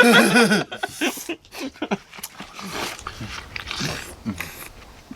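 Wet biting, slurping and chewing of juicy watermelon flesh: irregular crunches and sucks, eaten fast. A short wavering vocal sound opens it.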